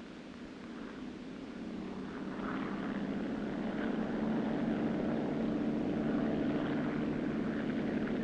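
Rescue helicopter's engine and rotor running with a steady hum, growing louder over the first four seconds or so and then holding steady.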